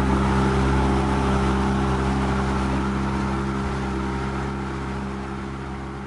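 A motorboat's engine runs steadily under the rush and hiss of water churning along the hull and in the wake. It grows gradually quieter as it fades out.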